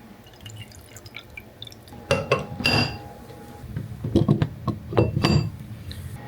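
Liquid being measured out and poured, dripping, with light clinks of glass and dishware; two of the clinks ring on briefly.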